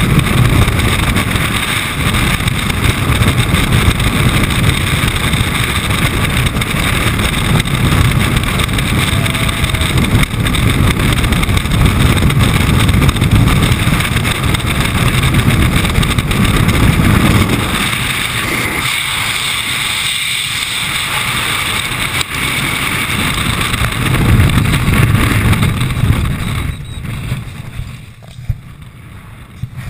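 Loud, steady rush of freefall wind buffeting the microphone of a helmet-mounted camera. Near the end it drops off sharply as the parachute opens and the fall slows.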